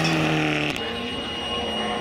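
Rally car engine held at high revs, cut off abruptly under a second in. Another rally car's engine follows, its note climbing as it accelerates.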